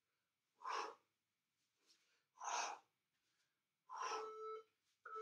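A man breathing out hard three times, about every second and a half to two, with the effort of a rotating plank. About four seconds in, a phone starts a repeating beep, a WhatsApp alert.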